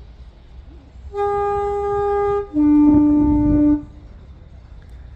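Class 108 diesel multiple unit's two-tone horn sounding on the approach: a higher note held for just over a second, then a lower, louder note for about a second.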